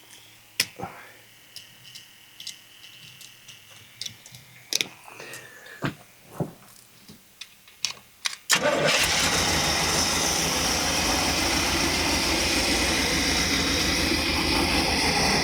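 Scattered light clicks and knocks, then about eight seconds in a sudden switch to the motorhome's 454 big-block V8 running loudly and steadily.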